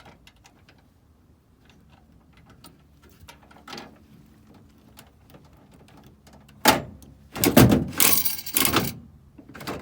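Faint clicks of coins being fed into a vending machine. About seven seconds in, a sharp clunk and then a loud rattling clatter of about two seconds as the machine vends.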